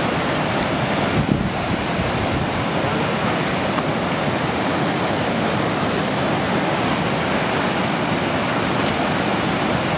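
Mountain stream rushing steadily under a footbridge, a constant roar of fast water over rocks.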